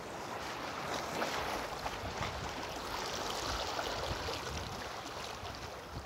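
Sea surf washing against a rocky shore, a steady rush that swells from about a second in and eases off toward the end.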